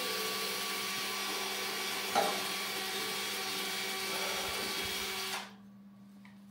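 A small electric tool motor running steadily with a whirring whine at the end of an exhaust pipe, then switched off about five seconds in.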